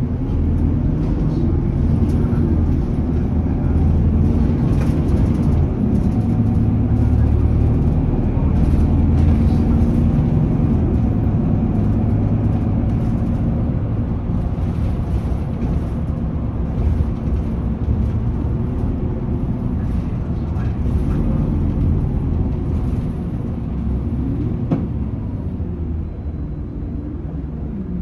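Inside a 2020 Isuzu Erga city bus: its diesel engine and drivetrain running as the bus drives, with the engine's pitch rising and falling. The sound eases off a little near the end as the bus slows toward a stop.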